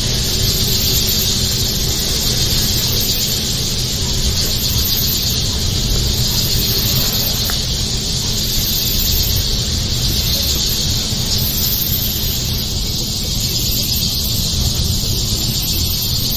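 Steady high-pitched insect buzzing over a steady low hum.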